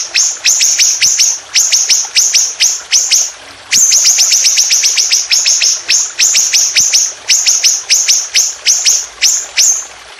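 A songbird singing a fast series of sharp, high whistled notes, each sweeping steeply downward, about four a second in long runs with a brief pause partway through. This is the rapid 'nembak' song used in masteran recordings to tutor caged songbirds.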